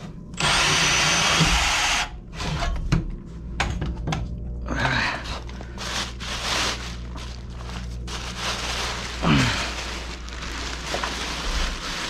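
Battery-powered portable bandsaw cutting through a metal water pipe, running steadily and stopping about two seconds in. After that come quieter, irregular knocks and rattles.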